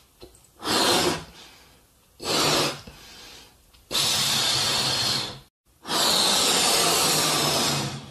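Breath blown hard into rubber balloons to inflate them: four breathy blows, two short ones and then two long ones of about one and a half to two seconds each.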